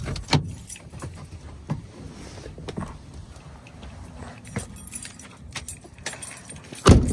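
Scattered jingling clicks and light knocks of handling noise, with one heavy thump near the end.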